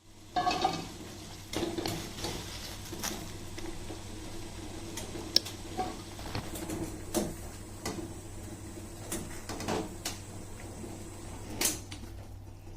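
Scattered knocks and clinks of pots, bowls and utensils being handled, over a steady low hum.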